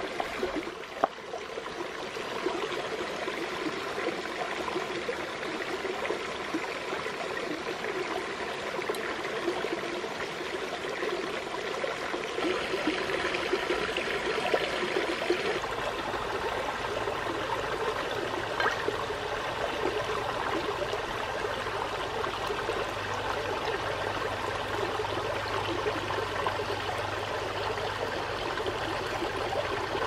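Shallow forest stream trickling over rocks, a steady babble of running water, with scattered small clicks and splashes as a plucked chicken is washed in it. About halfway a low steady rumble joins the water.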